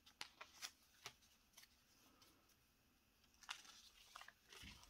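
Faint rustling and a few soft clicks of paper planner pages being handled and turned.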